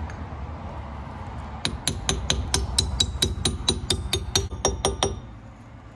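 Hammer tapping a metal grease cap onto a car's rear wheel hub: a quick run of about twenty light taps, about six a second, each ringing briefly, starting a little under two seconds in and stopping about five seconds in.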